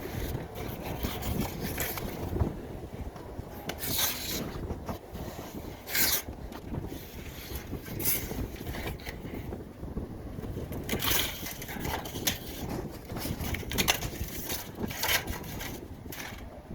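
Heating air duct with a steady low rush of moving air and a short scraping click every one to three seconds: the clicking inside the duct whose cause is being traced.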